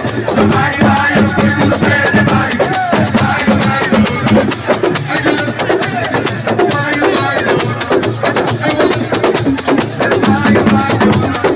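Live assiko (siko) band music: fast, steady drumming and shakers driving a dense rhythm, with voices singing over it.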